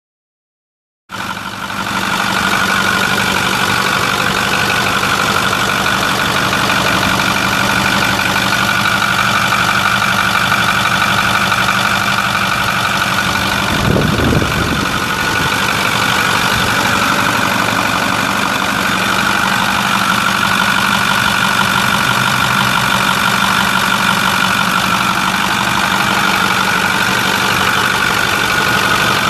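A 6.4-litre Power Stroke V8 turbo diesel idling steadily, with a steady high whine over the engine note. It starts about a second in, and there is a brief low thump about halfway through.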